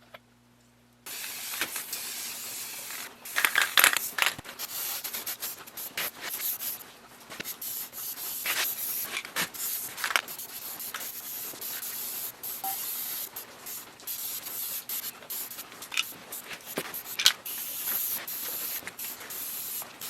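Aerosol spray-paint can hissing in repeated spurts of spraying, starting about a second in.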